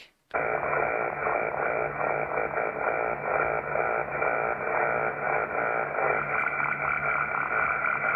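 Suspected jamming interference on the 40-metre amateur band, heard through an HF transceiver's speaker. It is a steady, harsh noise with a fluttering texture and faint steady tones, thin and filtered like sideband radio audio, and it starts about a third of a second in.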